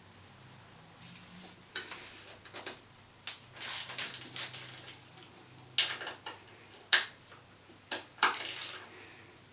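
Metal tool clicks, knocks and scraping as the pinch bolts on a bicycle's eccentric bottom bracket are worked loose; the bolts are tight. The clicks come irregularly, about half a dozen sharp ones.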